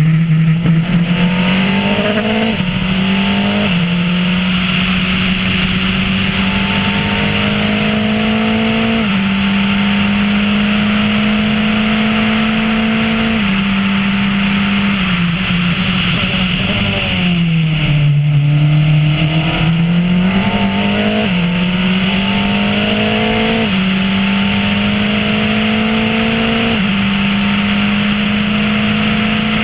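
Formula Renault single-seater's engine heard on board, pulling up through the gears with quick upshifts, each one a sharp drop in pitch. A little past halfway it falls away under braking and downshifts, then climbs up through the gears again.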